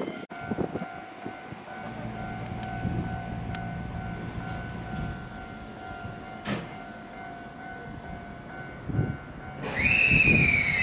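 Shizuoka Railway A3000 series electric train at a station platform, with a steady electrical hum. Near the end it begins to move and a loud whine sets in, falling steadily in pitch.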